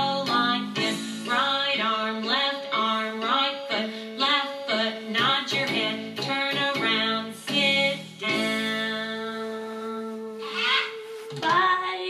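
Music: a song with singing and guitar, in short rhythmic notes, then one long held note about eight seconds in and a brief closing phrase near the end.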